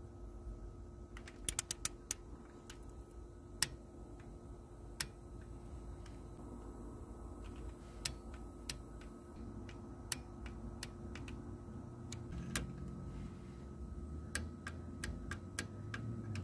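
Socket ratchet clicking while the water pump bolts are tightened down: a quick run of clicks about a second and a half in, then scattered single clicks. A faint steady hum runs underneath.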